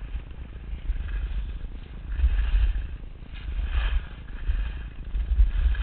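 Skis scraping and hissing over packed snow on a descent, swelling and fading about every second or so with the turns, over wind rumbling on the microphone.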